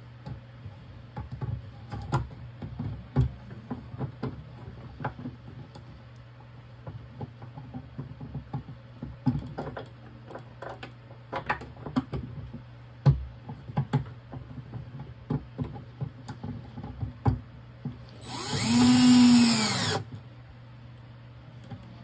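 Scattered clicks and knocks of hardware and a tool being handled. Then, near the end, a 12 V cordless drill runs for about two seconds, its motor pitch rising and then falling.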